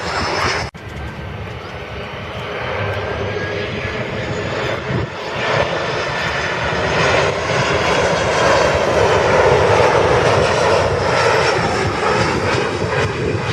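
Jet airliner's engines, a dense roar with a faint high whine, building up and staying loud through the later part. There is a sudden brief drop-out under a second in.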